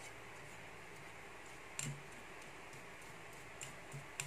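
Hair-dye tint brush clicking and scraping against the side of a bowl as the dye is stirred: a few light clicks over a faint steady hiss, one about two seconds in and several close together near the end.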